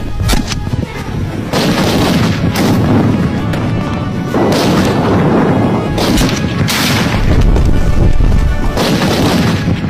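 Large-calibre, bipod-mounted sniper rifles firing: several loud shots a second or two apart, heard over background music.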